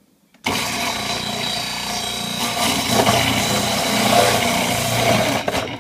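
Electric food processor switched on about half a second in, its motor running steadily with a high whine as the shredding disc grates pumpkin pushed down the feed chute. The sound cuts off sharply near the end.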